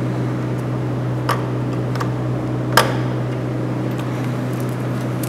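Steady low electrical hum with a few light metallic clicks as welding wire is fed into a MIG welder's wire-feed drive rolls. The loudest click comes near three seconds in.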